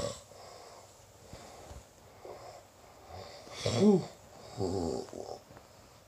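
A sleeping person snoring: the tail of one snore at the very start, then a loud snore with a pitch that rises and falls about four seconds in, followed quickly by a shorter one.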